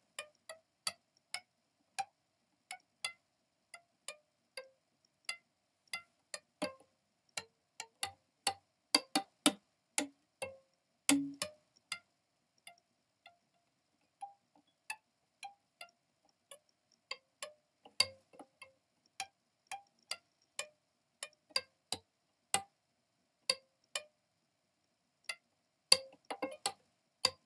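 A small instrument playing a slow melody of single notes, each a sharp, click-like pluck or strike that dies away quickly, with uneven spacing and a couple of short pauses.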